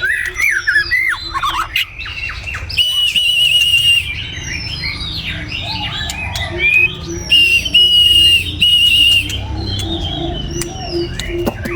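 White-rumped shama singing: a rapid, varied run of slurred and falling whistles, broken by longer buzzy, pulsing phrases about three seconds in and again around the middle.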